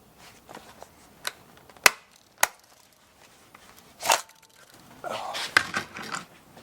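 Sharp clicks, the loudest two about half a second apart, then a short rustle and a stretch of strap and fabric rustling with more clicks near the end: pull-the-dot snap fasteners on holster softloop belt straps being pressed shut.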